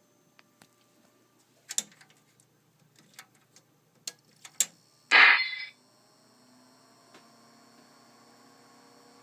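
Apple PowerMac 7600 switched on with no RAM installed: a few sharp clicks, a short louder sound about five seconds in, then a faint steady hum with several held tones. This is the Mac's unusual crash sound, a sign of missing RAM.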